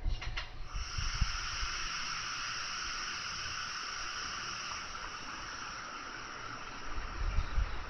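A few last wheel-flat knocks from the passing Super Azusa limited express in the first half second. Then a steady, slowly fading hiss of the train running on the rails as it moves away.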